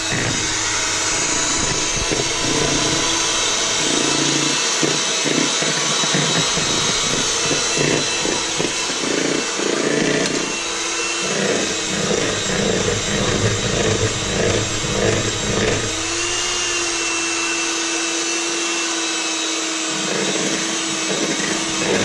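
Electric hand mixer running steadily, its beaters whisking cake batter in a plastic bowl, with irregular rattling as the beaters knock about the bowl through the middle. About three quarters of the way in it settles into a smoother, steady whine at a slightly higher pitch.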